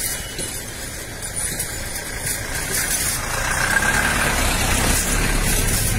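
Motorcycle engine running and getting louder from about three seconds in as it comes close, over steady background noise.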